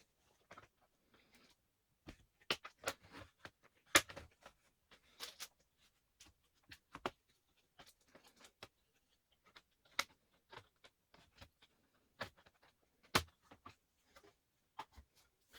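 Sharp clicks and taps at irregular intervals, with short scraping and rustling between them, from hands and small tools working on a laptop's case and parts.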